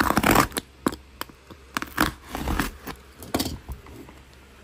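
Hands scraping, rubbing and tapping at ribbed cardboard packaging as it is pulled open, close to the microphone. The sound is a run of irregular scrapes and clicks, loudest at the start and thinning out towards the end.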